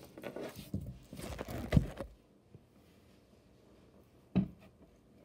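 Handling noise on a tabletop: a run of knocks and rustles in the first two seconds, the loudest just before the two-second mark, then one sharp knock about four and a half seconds in.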